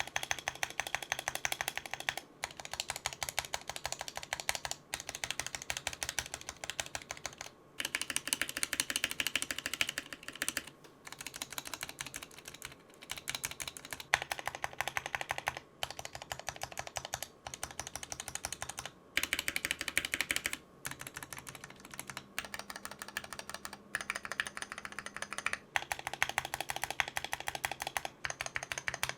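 Fast typing on a Drop Carina mechanical keyboard fitted with pre-lubed Gateron Cap Yellow linear switches and pudding keycaps: a dense run of key clacks in bursts, broken by short pauses every few seconds.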